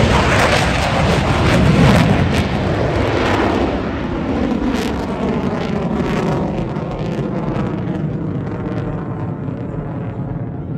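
Aircraft passing low and fast overhead: loud, its pitch dropping over the first few seconds as it goes by, then slowly fading away.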